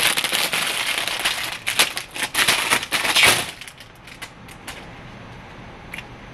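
Thin clear plastic bag crinkling and rustling as it is handled and emptied for about three and a half seconds, then a few faint clicks as the clear plastic suction cups are handled.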